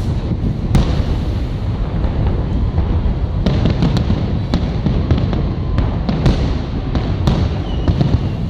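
Fireworks salute: a continuous rumble of shell bursts, with sharp separate bangs about once a second.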